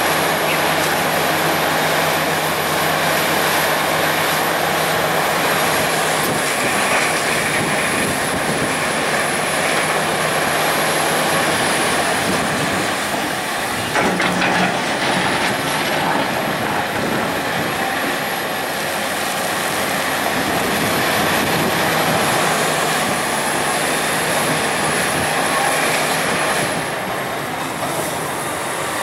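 Cat 336EL excavator's C9.3 ACERT diesel engine running steadily at working speed as the machine digs dirt with its bucket.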